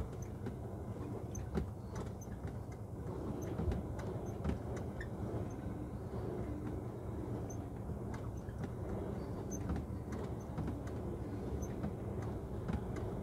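A lorry's diesel engine running at low speed as the lorry creeps forward, heard from inside the cab as a steady low drone, with scattered light knocks.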